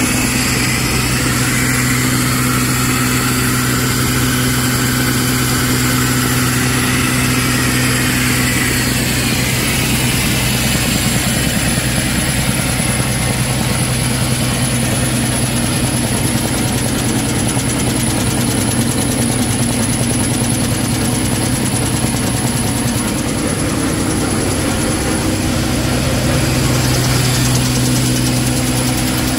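Five-lane N-fold (Z-fold) hand towel folding machine running at production speed: a steady mechanical hum with a low drone and a faint high whine.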